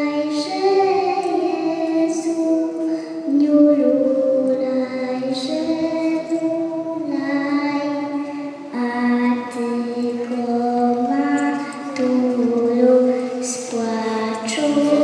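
A young girl singing a Polish Christmas carol (kolęda), a slow melody of held notes that step up and down.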